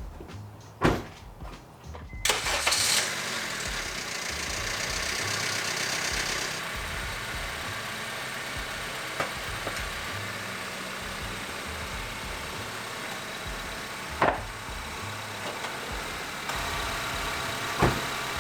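A knock about a second in, then the 2009 Honda Civic's 1.8-litre four-cylinder engine cranks and starts about two seconds in and settles into a steady idle: its first start after a fresh oil change. Two sharp knocks near the end.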